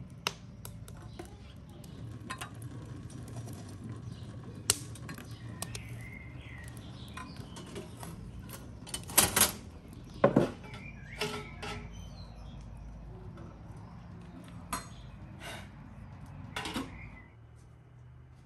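Metal tongs knocking and clinking against a wood-fired steel stove and its coals: scattered sharp metallic clinks, the loudest about nine and ten seconds in.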